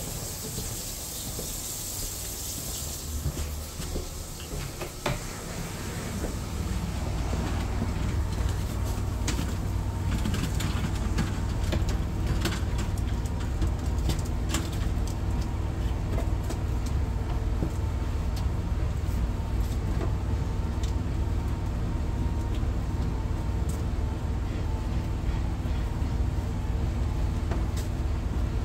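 Sewer hydrojetter's engine-driven pump running, a steady low drone that grows louder about six seconds in, with scattered light clicks and knocks over it. In the first few seconds, a hiss of running water.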